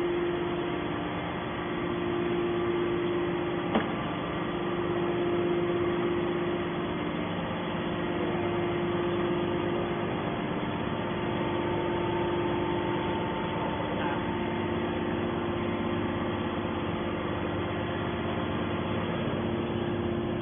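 Hydraulic scrap metal baler running: a steady mechanical hum with a constant tone, and one sharp click about four seconds in.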